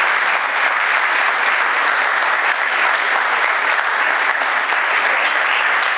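Audience of students applauding: dense, steady clapping from many hands.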